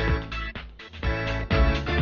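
Background music with a steady beat: heavy bass hits about twice a second under layered instrumental notes.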